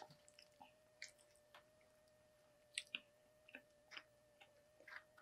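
Faint close-up chewing of a fast-food burger, with short mouth clicks and smacks about a second apart. A faint steady hum runs underneath.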